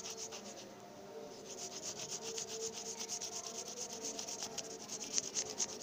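Colored pencil scratching quickly back and forth across notebook paper laid over a leaf, shading a leaf rubbing. The strokes slacken briefly about a second in, then carry on in a fast even rhythm.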